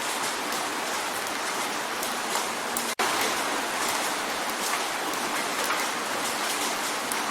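Steady rain drumming on a window pane, a dense even patter of drops with many small ticks. About three seconds in the sound cuts out for an instant and comes straight back.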